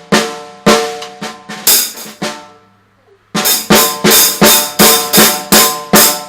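A toddler banging on a drum kit. The hits come loud and irregular at first, stop for about a second, then settle into a steady beat of about three hits a second.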